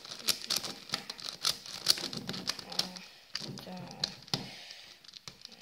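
Megaminx puzzle being turned quickly by hand: rapid, irregular plastic clicks and clacks as its faces snap round during a speed solve.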